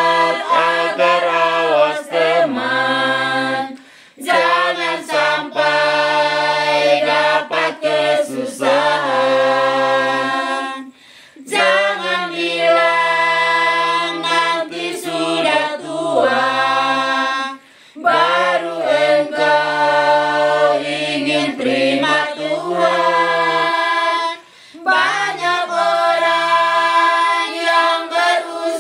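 A women's choir singing an Indonesian church hymn unaccompanied, in long phrases with a short pause for breath about every seven seconds.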